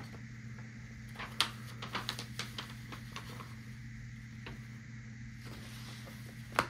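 A gilded bronze ring being set down on a stack of paper and the papers being handled with a cotton-gloved hand: a few faint light taps, then a sharper click near the end, over a steady low hum.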